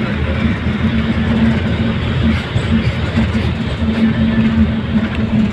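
Steady vehicle engine and road noise, with a constant low hum.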